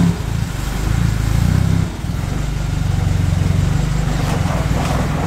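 A vehicle engine running steadily, with a fast, even firing pulse.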